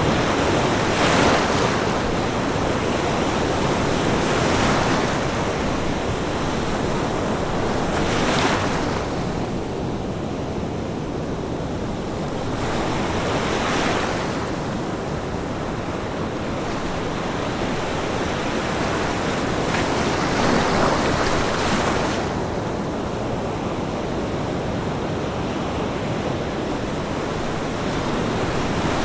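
Ocean waves breaking on a beach, one swell after another every few seconds, over a continuous wash of surf.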